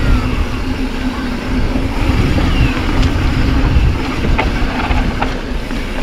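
Mountain bike rolling down a gravel flow trail: a steady low wind rumble on the helmet camera's microphone, with tyre noise and a few sharp rattling clicks from the bike.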